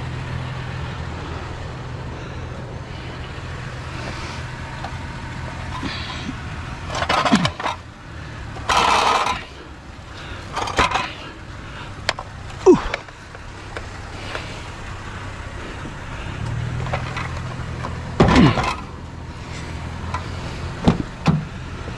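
A vehicle engine idles with a steady low hum, broken by a series of knocks, clanks and a loud scrape as bulky scrap is handled and loaded.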